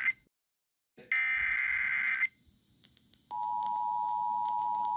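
Emergency Alert System tones: the end of one SAME header data burst, a short dead silence, then a second data burst lasting about a second. About three seconds in, the steady two-tone EAS attention signal starts and holds, announcing an incoming emergency alert.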